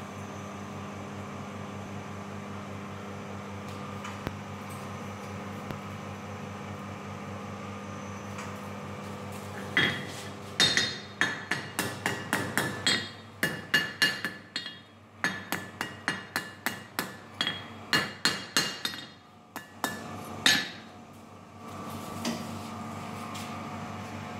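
Hand hammer striking steel in a run of ringing blows, about two a second, with one louder blow near the end. Behind it runs the steady hum of a coal forge's blower.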